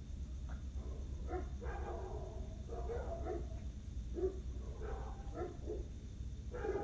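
A dog barking repeatedly at night, in short irregular runs of barks, over a steady low hum.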